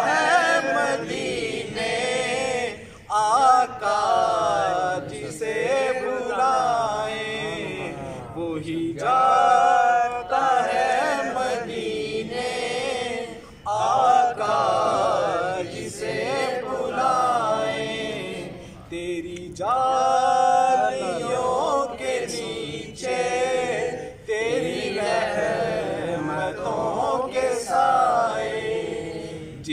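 A man reciting an Urdu naat (devotional poem in praise of the Prophet) without accompaniment. He sings it in long melodic phrases of a few seconds each, with short breaths between them.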